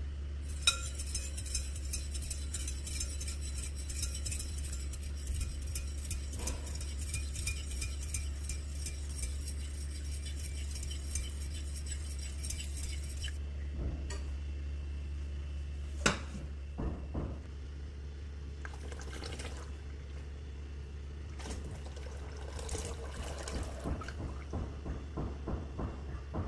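A metal spoon beating a thin pandan mixture in a ceramic bowl. It makes a rapid run of clinks and sloshing for about thirteen seconds, with a sharp clink about a second in. After that come scattered clinks and scrapes, with another sharp clink about sixteen seconds in.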